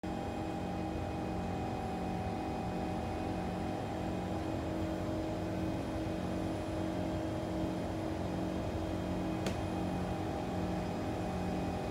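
Steady hum and whir of a stationary Kawasaki C151 MRT train car's onboard equipment while it stands at a station. A low hum tone swells and fades in an even pulse, and there is a single sharp click about nine and a half seconds in.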